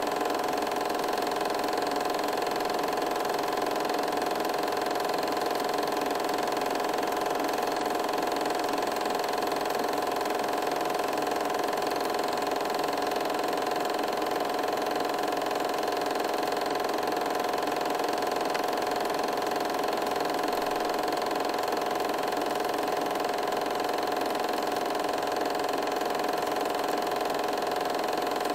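Steady mechanical whir of an 8mm film projector running.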